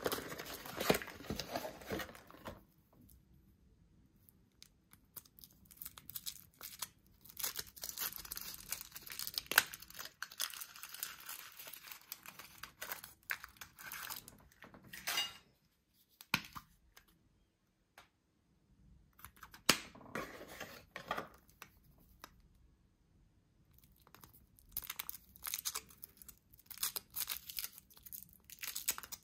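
Kinder Surprise chocolate eggs being unwrapped: their thin foil wrappers crinkle and tear in bursts, with short quiet pauses and a few sharp clicks between them.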